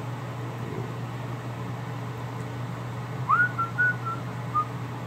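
A person whistling a short phrase about three seconds in: one rising swoop, then four brief notes at about the same pitch, over a steady low hum.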